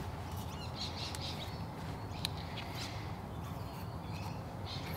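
Outdoor ambience with small birds chirping now and then, and a single sharp click about two seconds in.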